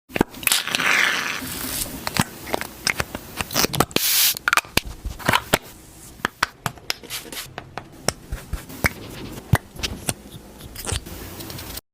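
Makeup being handled: a quick, irregular series of sharp clicks and taps from compacts and product cases, with a few brushing or spraying swishes, the longest about a second in and another about four seconds in.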